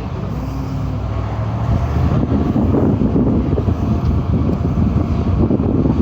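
Wind buffeting the microphone over a steady low engine rumble.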